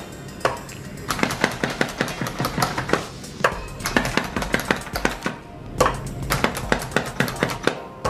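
Plunger-type hand chopper being pumped down again and again into cooked chicken, its spring plunger and blades clacking several times a second, with a few short pauses.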